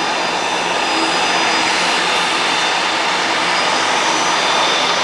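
Twin turbofan jet engines of a Dassault Falcon 6X running steadily: an even rushing jet noise with a faint high fan whine, unchanging in level.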